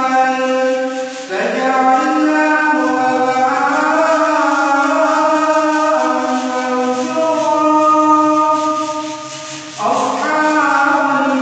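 A man reciting the Quran in a melodic chant, holding long, ornamented notes, with a short breath about a second in and another near the end.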